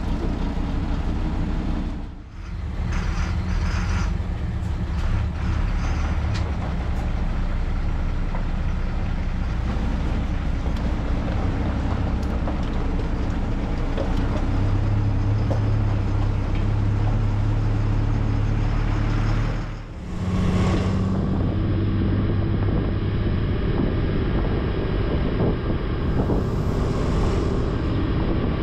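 Heavy truck engine running steadily at a low, even pitch. It grows louder for a few seconds past the middle, with two brief dips in the sound.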